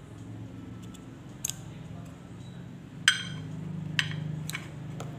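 Scissors snipping cotton wick on a rebuildable vape atomizer deck, with a few sharp clicks and clinks of metal on a ceramic plate. The loudest click comes about three seconds in. A low steady hum runs underneath.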